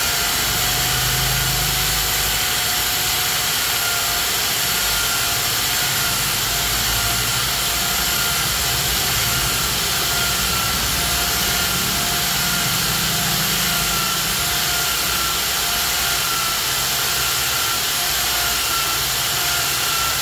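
Electric drill spinning an engine valve against its seat in the cylinder head with abrasive lapping compound thinned with a little oil, the fine lapping stage that smooths the seat so the valve seals. A steady whine over an even hiss.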